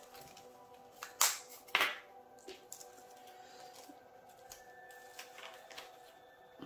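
Small plastic bags of diamond-painting drills crinkling, loudest twice in quick succession about a second in, with light clicks and taps of small plastic containers and labels being handled.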